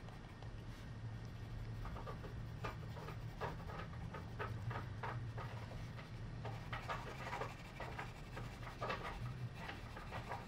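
Coloured pencil scratching on sketchbook paper in quick, irregular strokes as fur is sketched in.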